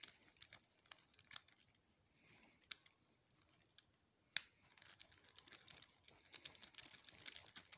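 Number wheels of a four-wheel combination padlock clicking as they are spun by hand to scramble the combination: irregular runs of small clicks, with one sharper click about four seconds in and denser clicking after it.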